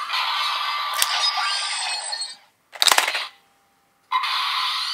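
Kamen Rider toy transformation belt playing its electronic standby sound with the KingDurian lock collectible fitted, with a sharp click about a second in. A loud mechanical clack near three seconds, a short pause, then a new burst of the belt's electronic sound near the end.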